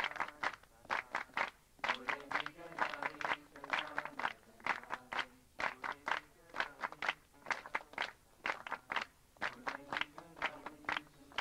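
Group of voices singing a devotional song together with sharp rhythmic hand claps, several claps a second.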